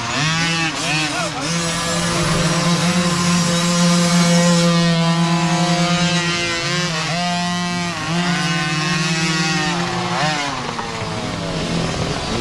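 Small youth dirt-bike engines revving, rising and falling in pitch again and again, with one held at a steady high rev through the middle for a few seconds. Several bikes are running at once, straining up a loose dirt climb.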